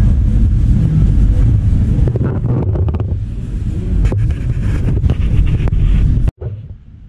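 Loud, rough, low rumbling noise on the microphone, of the wind or handling kind, with a few faint knocks. It cuts off suddenly about six seconds in, leaving a much quieter background.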